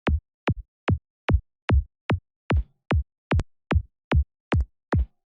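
Synthesized psytrance kick drum from the Kick N Bass Gel synth, tuned to D, looping in a steady four-on-the-floor pattern of about two and a half hits a second. Each hit is a short, punchy thump that drops quickly in pitch.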